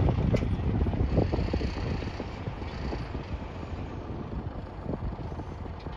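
Backhoe loader's diesel engine running, louder in the first second or so and then easing off, with a couple of sharp knocks near the start.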